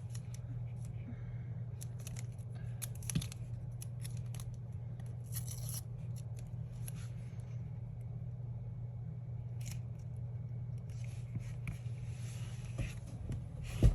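Paper and sticker sheets being handled and cut: scattered short crackling rustles and snips at irregular moments, over a steady low hum.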